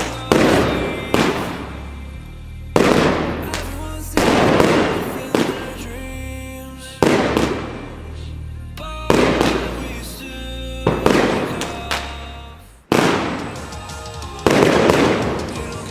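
Röder Alpha Centauri compound firework cake firing its shells one after another, a loud burst about every one and a half to two seconds, each trailing off in a crackling decay. It is a slow-firing cake.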